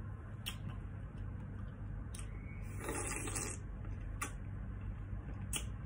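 Metal cutlery clicking against ceramic plates, four sharp clicks spread over the few seconds, with a short louder scrape about three seconds in, over a steady low hum.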